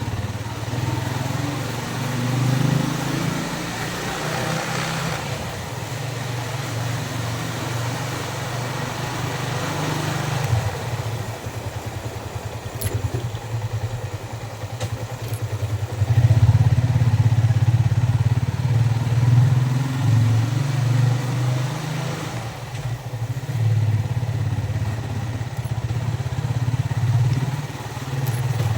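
Yamaha Vixion's single-cylinder engine running under a ridden motorcycle, with wind rushing over the microphone at times. The engine drops to a quieter, steady putter for a few seconds midway, then gets louder again about sixteen seconds in.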